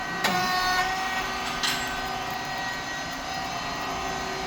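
SYP3080 rice cake machine running: a steady hum with a few held tones from its three-phase motor, hydraulic pump and cooling fan. A short sharp sound comes right at the start and another about a second and a half in.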